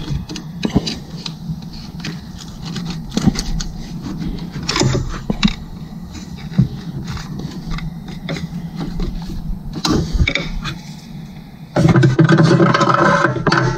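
Irregular metal clicks and scrapes of a wrench and fingers working a replacement cooling fan temperature sensor into the engine by hand. About twelve seconds in, a louder steady sound with held tones takes over.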